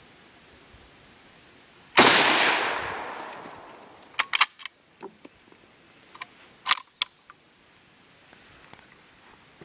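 .303 bolt-action rifle firing one shot about two seconds in, the report echoing and fading over about two seconds. A quick run of metallic clicks follows as the bolt is worked to eject the spent case, with a few more clicks a couple of seconds later.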